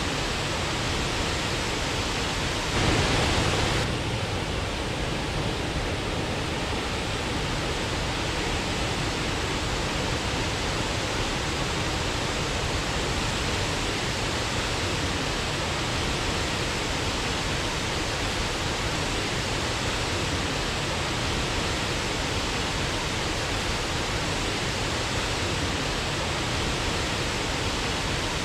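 Waterfall rushing in a steady, even roar of falling water, with a brief louder swell about three seconds in.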